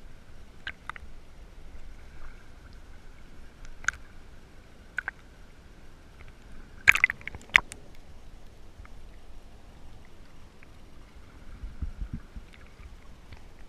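Shallow seawater sloshing and lapping around an underwater camera held at the surface, heard as a low rumble. Scattered sharp clicks come through, with a quick cluster of the loudest ones about seven seconds in.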